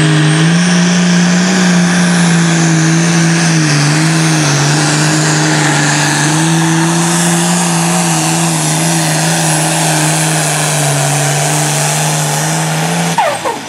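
Diesel engine of a modified pulling tractor running hard and loud under full load during a pull, its pitch holding nearly steady with small dips. It cuts off sharply about thirteen seconds in.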